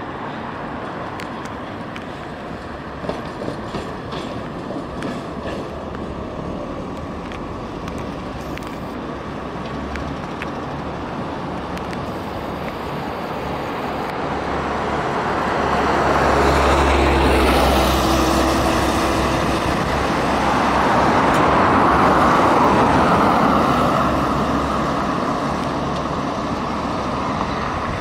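Tatra T3 tram running along street tracks amid road traffic noise. The noise swells twice in the second half, loudest a little past halfway, with a brief falling whine as something passes close.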